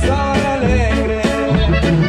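Live regional Mexican band music at a steady dance beat: a sousaphone playing the bass line under a drum kit, with melody instruments on top.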